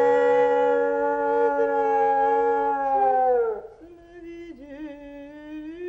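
Dog howling one long, steady note that slides down and breaks off about three and a half seconds in, followed by a quieter, wavering hum.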